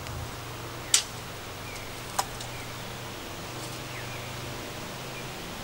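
Two sharp knocks, a little over a second apart, over a low steady hum, with a few faint bird chirps.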